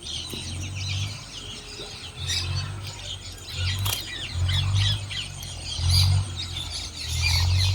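Small birds chirping and twittering throughout, over low rumbles that swell and fade every second or so.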